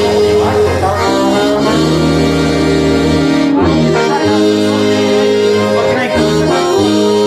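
A hymn tune played in slow, held chords, several notes sounding together and changing about once a second, with a slide trombone among the instruments.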